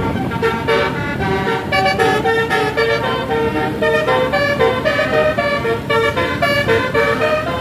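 A 36-note Basuri telolet bus horn plays a fast melody of short, stepped notes, changing pitch several times a second, over the low rumble of the bus's engine and road.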